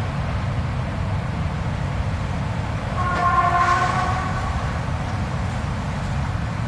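Steady, low blizzard wind. About three seconds in, a pitched, horn-like howl rises over it for about a second, falling slightly before it fades.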